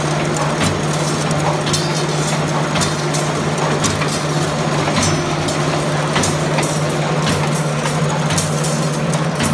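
Steel wire straightening machine running, its straightening drum spinning with wire feeding through: a steady motor hum under irregular clicks and rattles.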